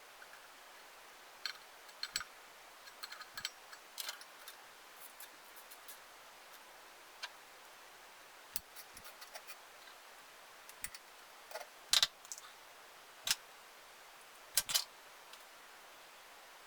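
Irregular light clicks and knocks of small tools or parts being handled during compressor maintenance, the loudest about twelve seconds in and a close pair near the end, over a faint steady hiss.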